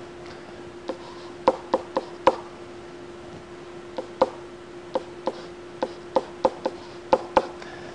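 A stylus clicking against a tablet screen during handwriting: about sixteen sharp, irregularly spaced taps in small clusters, with a pause of over a second near the middle, over a faint steady hum.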